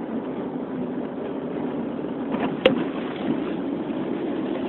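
Steady road and engine drone inside a moving car's cabin, with one sharp click a little over halfway through.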